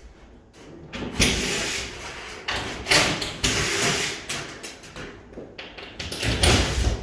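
Light-gauge steel wall stud being worked loose and pulled out of its top and bottom track: metal scraping and rattling on metal in irregular clatters with sharp knocks, starting about a second in.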